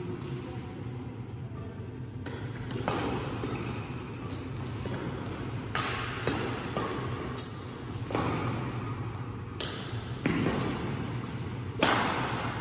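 Badminton rally: racket strings striking the shuttlecock in a run of about a dozen sharp hits, roughly every half second to second and a half. Some hits are followed by a brief high squeak, and the hall echoes over a steady low hum.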